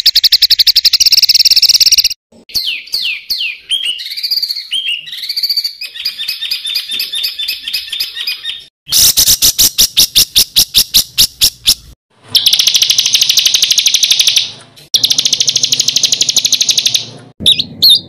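A songbird's harsh, rolling song in abruptly cut segments: a fast high trill, a run of varied sliding whistles, then rapid buzzing rattles and two long fast trills.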